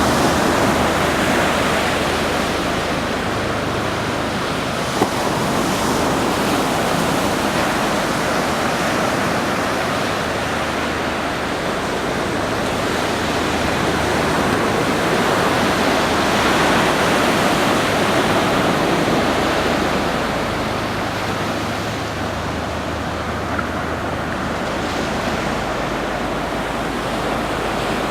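Ocean surf breaking and washing up a sandy beach, a steady rushing noise that slowly swells and eases as the waves come in.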